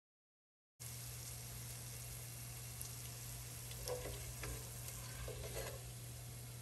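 Hot oil sizzling in a stainless steel pot as fried potato cubes are lifted out with a slotted spoon, starting about a second in, with a few short scrapes and clinks of the spoon against the pot around the middle. A steady low hum runs underneath.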